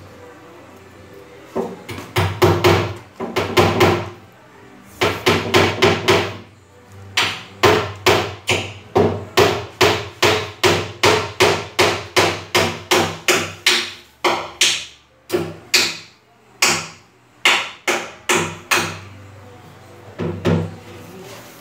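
Repeated hammer blows: short clusters of sharp strikes, then a steady run of about two strikes a second with brief pauses, ending a little before the end.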